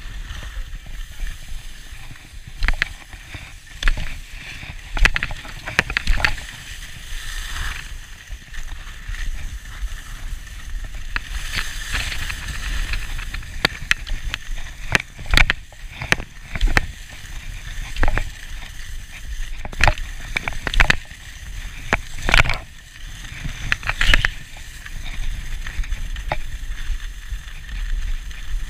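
Skis sliding and scraping over groomed packed snow on a downhill run, with irregular sharp scrapes as the edges bite through turns, over a low steady wind rumble on the microphone.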